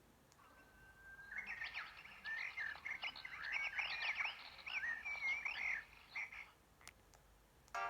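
Nature-sound ringtone on a ZTE S2X phone: a dense run of quick rising and falling chirping calls, frog- and bird-like, starting about a second in and stopping near the end.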